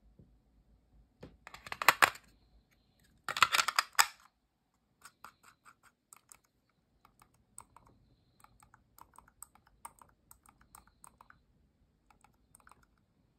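Two loud bursts of handling noise about one and three seconds in, then a long run of soft, irregular clicks as the Logitech MK470's low-profile, quiet-click wireless mouse is handled and its buttons and scroll wheel are worked.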